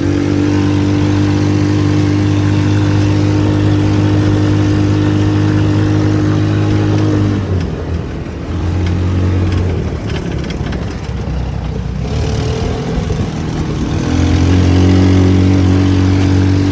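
The DF200GKV small single-cylinder engine of a homemade buggy running at a steady, held high speed, dropping away about seven seconds in, coming back briefly, then falling off again before returning loudly near the end. In the gaps a rough, rattling noise takes over.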